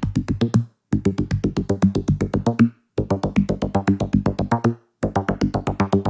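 Electronic music: a fast drum-machine beat over a bass line, dropping out for a moment about every two seconds.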